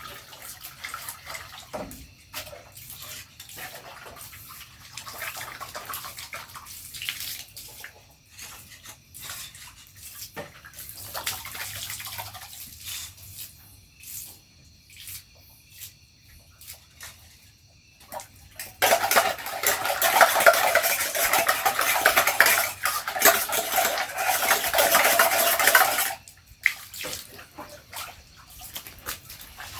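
Camping equipment being washed by hand with water: scattered splashing with light knocks and clatter of gear. About two-thirds of the way in, water runs or pours loudly and steadily for about seven seconds, then cuts off suddenly.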